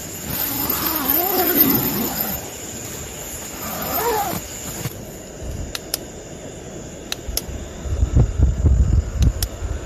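A wavering, drawn-out call rising and falling in pitch for about two seconds, then a shorter one around four seconds in. After that come a few sharp clicks of handling, and in the last two seconds the low, uneven rumble of a small rechargeable stand fan's air blowing across the microphone, the loudest sound here.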